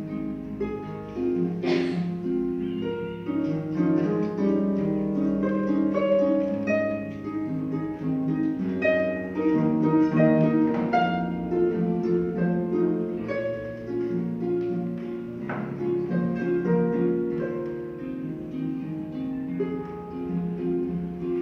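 Pedal harp played solo: plucked notes and chords in a classical piece, the strings ringing on over one another.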